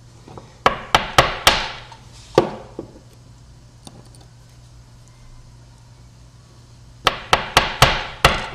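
Sharp taps and clicks of a disassembled lock cylinder and its small metal pins being handled against a hard work surface. There are five taps in the first two and a half seconds, then a quiet stretch, then a quick run of about six taps near the end.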